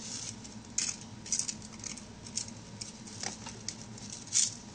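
Scattered soft rustles and small clicks of hands handling a plastic doll and toy horse, with a sharper scrape near the end.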